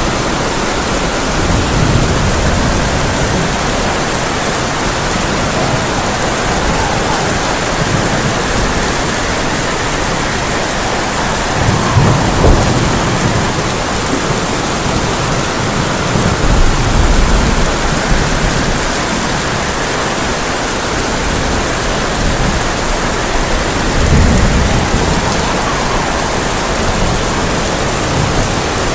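Heavy rain drumming steadily on a tin roof, with rolls of thunder rumbling low several times, the loudest about twelve seconds in.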